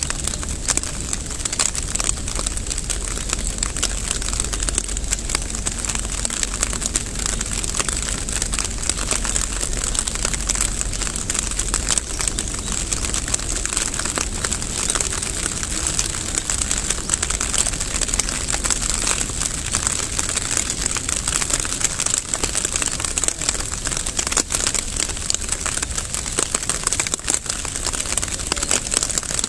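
Steady rain falling: a dense, even hiss of many small drop impacts. A low rumble runs under it for about the first twelve seconds, then drops away.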